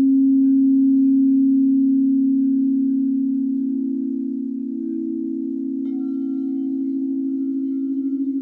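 Crystal singing bowls ringing together: a loud, steady low tone joined a few seconds in by a second tone close in pitch, the two pulsing slowly against each other. About six seconds in, another bowl starts ringing with higher, bell-like tones above them.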